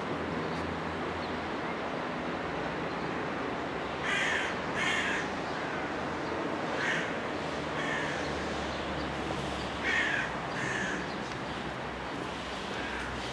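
A bird calling outdoors in short, repeated calls, about seven in all and several of them in pairs, over a steady low background hum.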